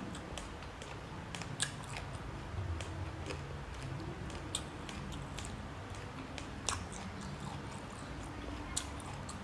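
Close-up eating sounds: chewing with a few sharp clicks and crunches scattered through, over a low steady hum.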